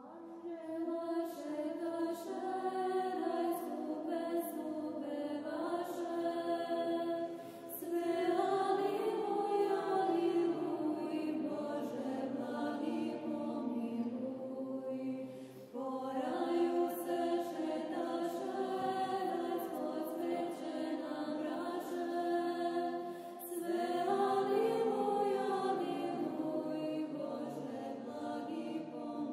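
Choir singing slow unaccompanied chant in long, held phrases, with a short break roughly every eight seconds.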